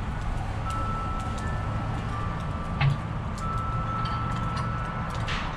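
Spritzing meat in a barrel smoker: light clicks and clinks of steel hanger hooks and a hand spray bottle, one louder clank about three seconds in, and a short spray hiss near the end, over a steady low hum.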